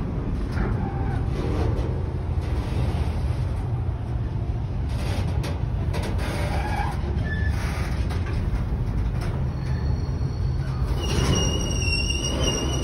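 Container freight train wagons rolling past close by, a steady low rumble of wheels on rail. About eleven seconds in, a high, steady wheel squeal sets in.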